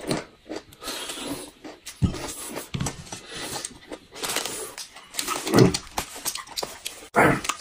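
Close-up eating sounds: crayfish shells cracking as they are peeled, with sucking and chewing, and two louder mouth sounds in the second half.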